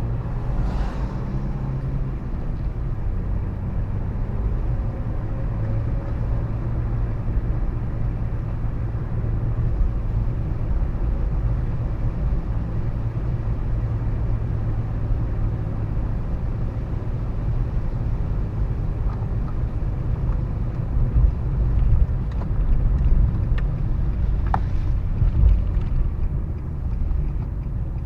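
Car driving along: a steady low rumble of engine and road noise, swelling a little louder for a few seconds about three-quarters of the way through.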